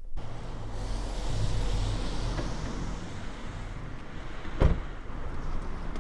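Steady low rumble of a road vehicle running, with a single sharp knock a little over halfway through.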